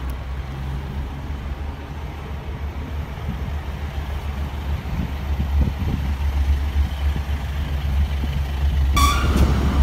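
Diesel multiple unit's underfloor engine running with a steady low drone that grows louder as the train moves off. A short train horn sounds near the end.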